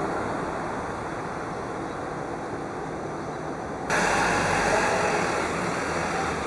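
Steady jet engine noise of Japan Airlines airliners on final approach to land. About four seconds in, the noise jumps abruptly louder and brighter as a second, smaller regional jet takes over.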